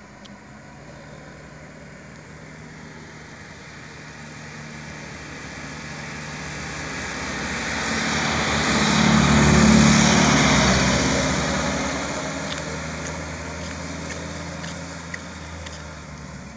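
A white van driving past with another vehicle following close behind: engine and tyre noise builds slowly, is loudest about ten seconds in as they pass, then fades as they drive away.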